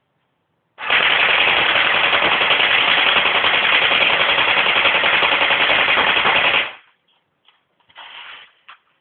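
Airsoft gun firing one long full-auto burst of about six seconds, BBs striking a plastic DVD box, starting about a second in and cutting off abruptly.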